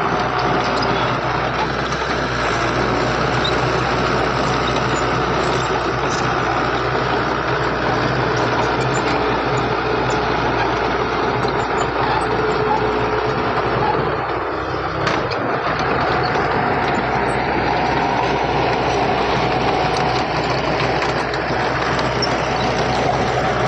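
Heavy diesel earthmoving machinery running steadily, with a brief dip in the engine noise about two-thirds of the way through.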